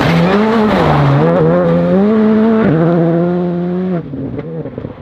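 Skoda Fabia rally car's turbocharged four-cylinder engine revving hard through a gravel corner, the revs dipping and climbing again with lifts and gear changes. The sound drops sharply about four seconds in as the car pulls away.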